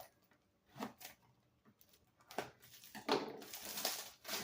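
Packaging of a hex key set being handled: a couple of light clicks, then rustling from about three seconds in as the set is opened.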